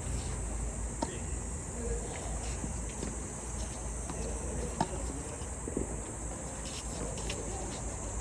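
A steady high-pitched insect chorus, with a few sharp knocks of a tennis ball struck by rackets: one about a second in and two more near the middle.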